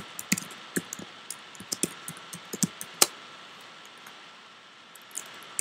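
Keystrokes on a computer keyboard, typing code: irregular clicks, quick in the first three seconds with one louder key about three seconds in, a short pause, then a few more keys near the end.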